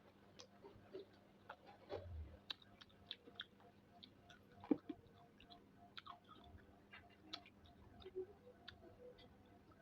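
Faint eating sounds: soft chewing with scattered small clicks and taps, the sharpest about four and a half seconds in.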